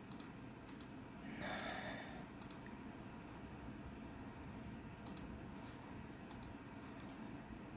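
Computer mouse clicking, each click a quick double tick of press and release, about four of them spaced a second or more apart, paging through photos. A brief soft rush of noise comes about a second and a half in, over a faint steady hum.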